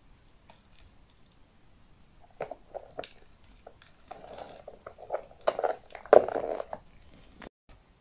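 A clear plastic clip-lid box being handled with gloved hands: several sharp plastic clicks, then rubbing and scraping of the lid and box, heaviest about halfway through, stopping abruptly near the end.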